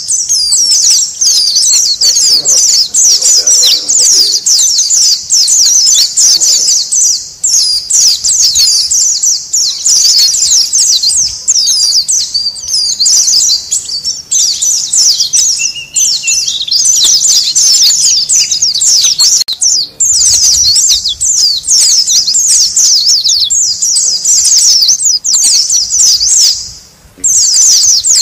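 A flock of white-eyes (pleci) calling noisily: dense, overlapping high-pitched twitters and chirps with no break, except a brief pause about a second before the end.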